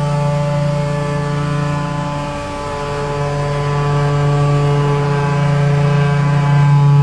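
Diesel engine of a truck hauling two tipper trailers, running steadily under load. It eases off briefly about halfway, then builds louder again near the end.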